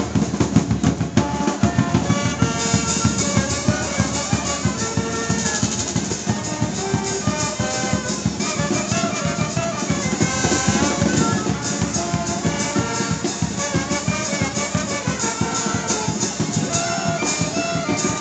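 Live street band of saxophones, clarinet, brass and drum playing a lively tune over a steady drum beat.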